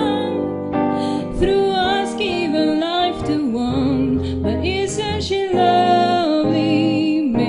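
A woman singing a slow, soft ballad with vibrato, accompanied by piano.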